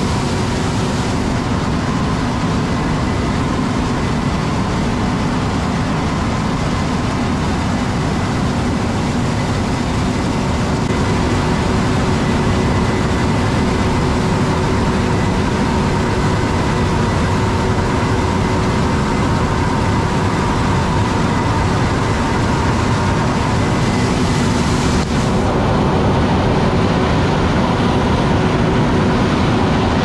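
John Deere S780 combine running while shelling corn: a dense, even rumble of engine and machinery with a faint steady hum over it.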